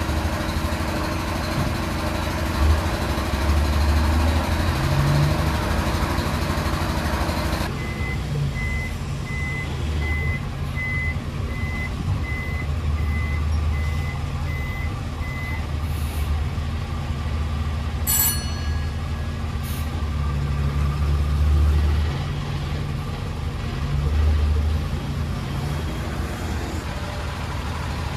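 Diesel tanker truck engines running with a steady low rumble. For several seconds in the middle a truck's reversing beeper sounds, about two beeps a second, and a short hiss follows a little later.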